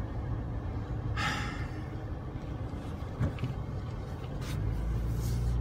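Low, steady rumble of a car's engine and tyres heard from inside the cabin, swelling near the end. A short sharp breath is heard about a second in.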